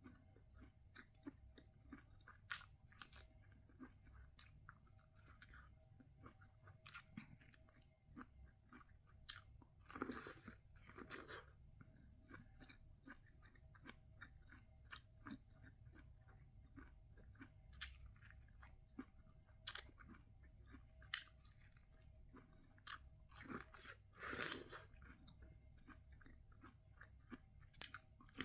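Someone eating sweet corn close to the microphone: quiet, irregular chewing with small crunching clicks. Two louder, longer bites come about ten seconds in and again about twenty-four seconds in.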